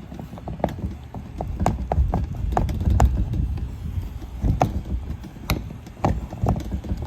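Footsteps on hard ground, a scatter of irregular clicks and knocks, over a low rumble of wind on the microphone.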